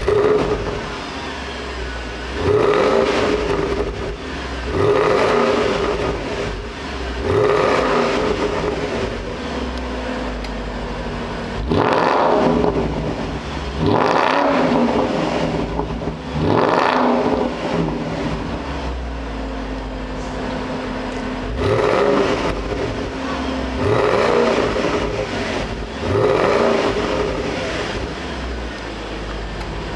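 Porsche Panamera 4S engine through a Power Craft aftermarket exhaust, heard from the rear: revved in short blips about every two to three seconds, the pitch rising and falling back to idle each time, with a longer spell of idle around the middle.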